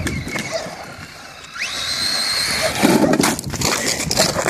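Brushless electric motor of a DHK Zombie 8E 1/8-scale RC truggy whining up sharply in pitch as it accelerates, holding a high whine for about a second. A rougher burst of noise follows about three seconds in, with scattered crunching and clicking throughout.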